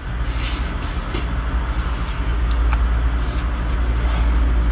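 Fishing boat's engine running steadily with a low drone, a few faint clicks over it.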